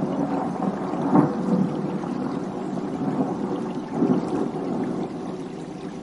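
Thunder: a sudden loud clap at the start, then a rolling rumble that swells again about a second in and about four seconds in, dying away near the end.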